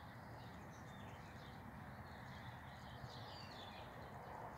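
Small birds chirping and singing faintly over steady background noise.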